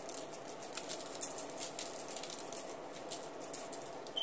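Seasoning shaken from a shaker onto raw chicken pieces in a pan: a quiet, uneven patter of fine, high ticks.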